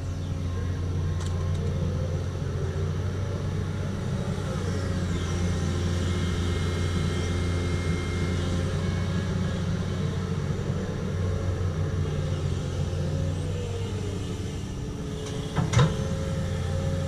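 Doosan excavator's diesel engine running steadily under work, with a whine now and then gliding in pitch. A single sharp clank about a second and a half before the end is the loudest sound.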